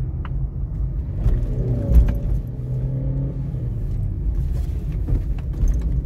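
Steady low rumble of a car's engine and tyres heard from inside the moving car's cabin, with a single thump about two seconds in.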